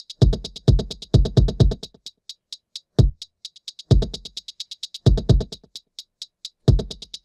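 Programmed drum-machine beat playing back from the Akai MPC software at 130 BPM: a fast, even run of sixteenth-note hi-hats over deep kick and bass hits that come in groups and drop out for short spells.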